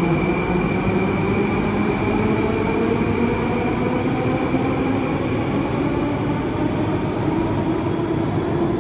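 Moscow Metro Rusich train pulling out of the station: a steady rumble of wheels on rail, with the traction motors' whine slowly rising in pitch as it picks up speed.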